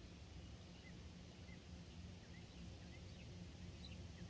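Faint small-bird chirps, short and high, coming a couple of times a second over a low steady background rumble.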